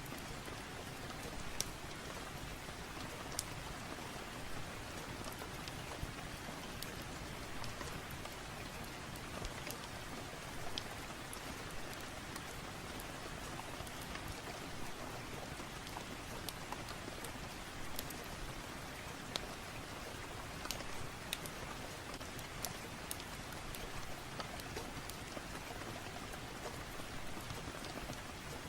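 Steady rain ambience mixed with a wood fire, with scattered sharp crackles popping out over the rain every second or so.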